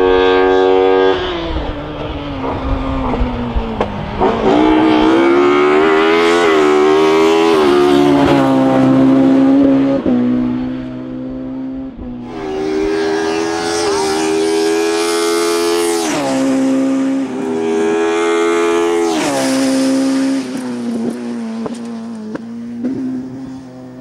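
Ford Escort hill-climb race car's high-revving 16-valve engine, revving hard and rising repeatedly in pitch with several sudden drops, and a quieter off-throttle stretch about halfway through. The engine fades as the car pulls away near the end.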